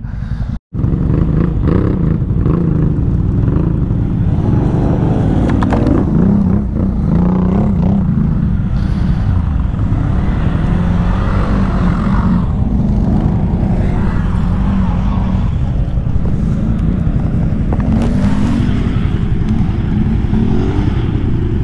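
ATV (quad bike) engines running steadily at low revs.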